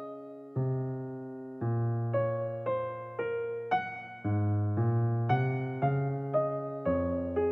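Soft background piano music: notes and chords struck about every half second to a second, each left to fade.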